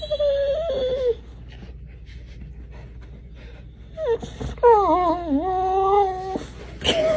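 A dog whining: a short whine at the start, then a longer whine of about two seconds from about four seconds in, its pitch wavering and dipping.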